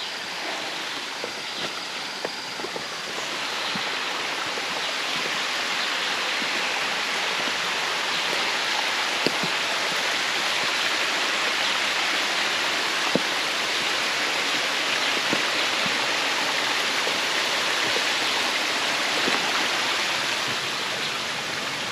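A jungle stream rushing steadily over rocks at a small waterfall, growing a little louder about three seconds in.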